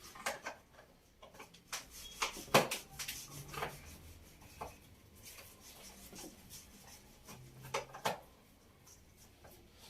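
Taking apart a Crown angle grinder by hand, starting with its side handle: scattered clicks, knocks and scraping of plastic and metal parts, loudest about two and a half seconds in and again near eight seconds.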